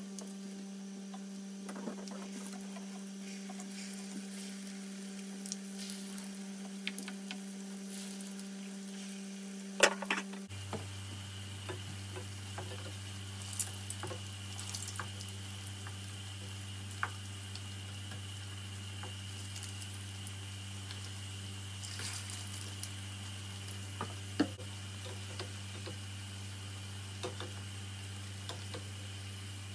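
Shami kabab patties shallow-frying in oil: a faint steady sizzle with scattered small crackles and pops, over a low steady hum that drops in pitch about ten seconds in.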